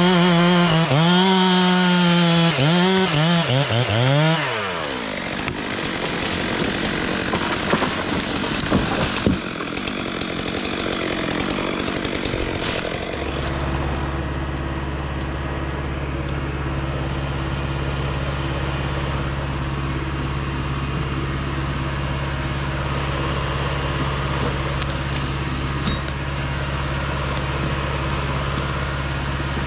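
Stihl MS462 two-stroke chainsaw revving up and down for about four seconds, then dying away. About 13 seconds in, a steady low diesel engine drone comes in, the LKT skidder's engine, and keeps running.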